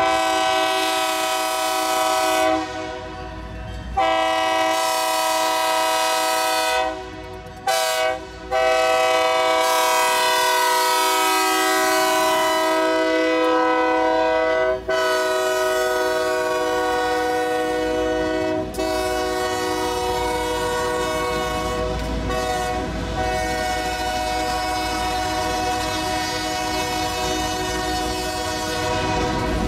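Diesel locomotive air horn sounding the grade-crossing pattern: two long blasts, a short one, then a long blast held for about twenty seconds before it fades, as the GP39-led train rolls through the crossing. The low rumble of the locomotives and the rolling train runs underneath.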